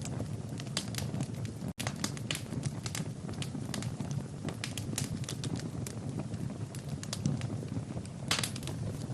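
Wood fire burning in a fireplace, crackling with frequent irregular sharp pops over a low rumble of the flames. The sound cuts out for an instant just under two seconds in.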